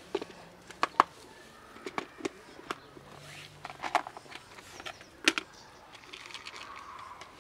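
A scattering of sharp clicks and taps, several loud single ones and a small cluster around the middle: dry cat kibble being tossed by hand onto asphalt.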